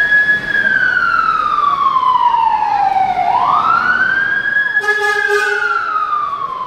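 Emergency vehicle siren sounding a slow wail: each cycle rises quickly, holds briefly, then falls slowly over about three seconds, and a new cycle starts about three seconds in. A short steady tone sounds over it about five seconds in.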